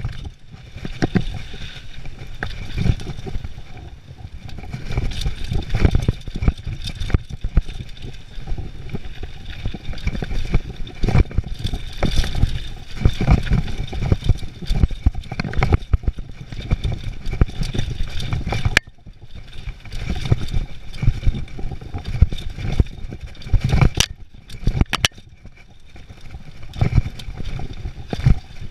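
Downhill mountain bike ridden fast over a rough dirt trail, heard from a camera on the rider: a constant rumble of tyres and wind on the microphone, with the bike clattering and knocking over every bump.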